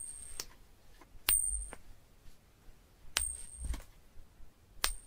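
Four sharp metallic coin clinks, about one to two seconds apart, each ringing briefly on one high note and followed by a softer click.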